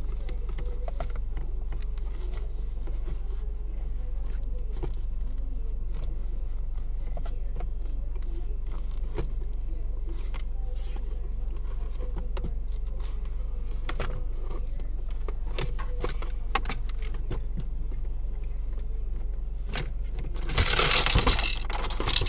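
Scattered light clicks and rattles from interior trim being handled, over a steady low hum. Near the end comes a loud burst of loose coins spilling and jingling out of the car's centre console.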